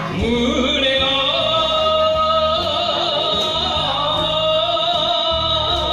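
A man singing enka to a karaoke backing track, holding long notes with a wavering vibrato.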